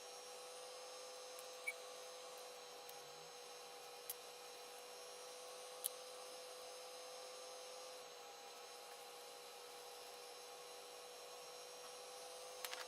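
Steady faint hum holding one pitch, with a few short faint clicks scattered through it.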